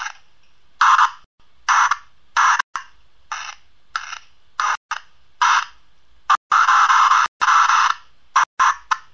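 Short bursts of hissing static, about two a second, each starting and stopping abruptly, with a longer burst a little past the middle and moments of dead silence between some.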